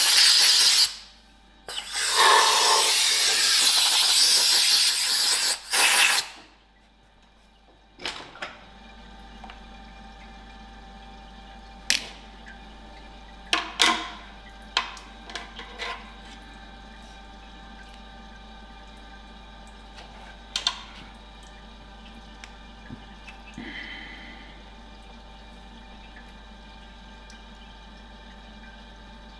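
Loud rushing spray for about six seconds, with a short break about a second in, as chips and coolant are cleared from the freshly bored hole at the milling machine. Then a steady low machine hum, with scattered sharp metal clicks from tools and a digital caliper being handled on the workpiece.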